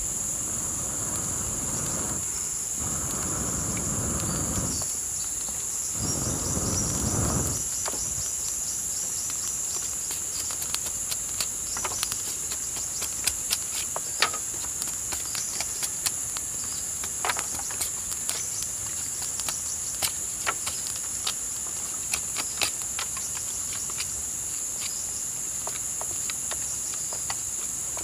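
Steady chorus of insects in the forest, a continuous high-pitched two-note drone. Three short bursts of low rustling noise come in the first several seconds, then scattered sharp clicks.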